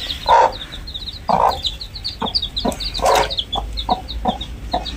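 A desi hen clucking in short notes, with three longer, louder calls, while her chicks peep rapidly and continuously in high, thin notes. The hen is wary and guarding her chicks.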